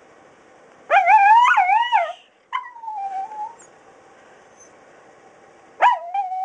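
Miniature pinscher whining, eager for a piece of tissue held just out of reach: a loud wavering whine about a second in, a shorter falling whine right after, and another brief whine near the end.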